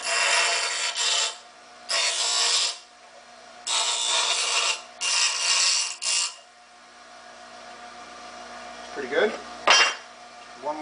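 Bench grinder motor running with a steady hum while an aluminium strip is pressed to the grinding wheel in four short, harsh grinding passes, deburring the sharp cut edges of the metal. A sharp knock comes near the end.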